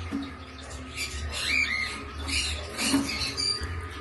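A flock of cockatiels chirping and squawking, many short overlapping calls, some rising and falling in pitch.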